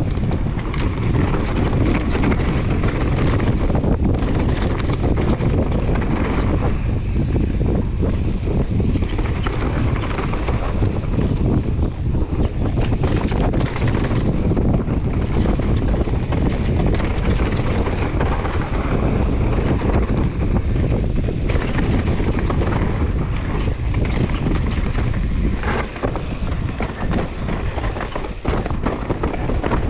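Mountain bike riding fast down a rough dirt and rock trail: tyres crunching over gravel and stones, the bike rattling and knocking over the bumps, under steady wind rush on the microphone.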